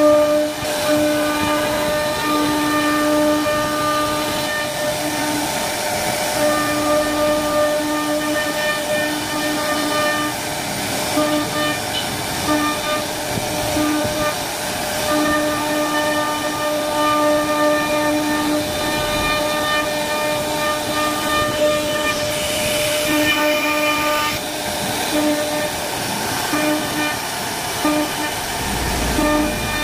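CNC router spindle whining at a steady high pitch as its bit carves a relief pattern into a wooden door panel, over the hiss of cutting. The whine swells and fades as the cutter moves through the wood.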